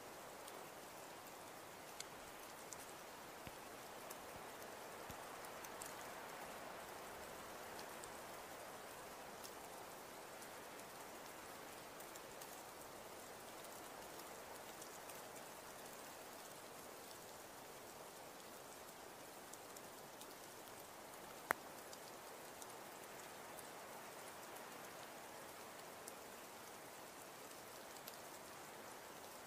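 Faint, steady rain-like patter of falling precipitation, with scattered small drip-like ticks and one sharper click about two-thirds of the way through.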